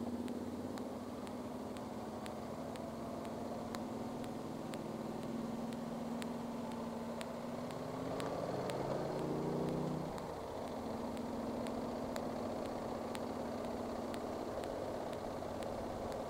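Motorcycle engine running while riding, with wind and road noise. About eight seconds in, the engine note climbs for a couple of seconds under acceleration, then drops back sharply as the throttle closes. Faint clicks recur throughout.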